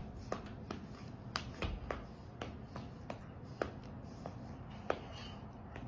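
A series of light, sharp clicks, irregularly spaced at about two to three a second, over a low steady background hum.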